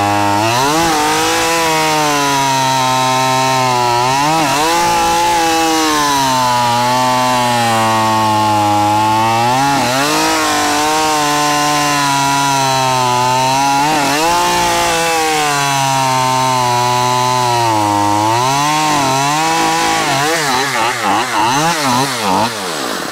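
Craftsman two-stroke chainsaw running at high revs while cutting through a log, its pitch sagging and recovering every few seconds as the chain bites and eases. In the last few seconds the engine speed wavers unevenly, then drops away. The saw is being run on gas without oil and with its air filter removed.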